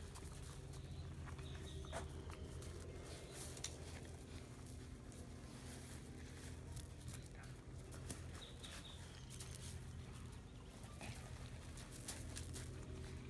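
A golden retriever mother and her puppies playing on gravel: scuffling and scattered clicks from paws and the toy, with a few faint high-pitched squeaks, over a steady low hum.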